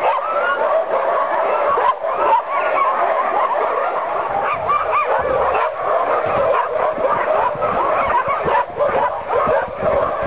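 A chorus of many sled dogs barking, yipping and whining over one another without a break, the excited din of a team eager to run.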